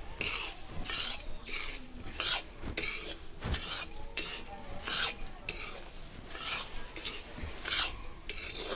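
Steel spoon scraping and stirring dry white granules around an iron kadhai as they roast in ghee, in repeated strokes about one or two a second.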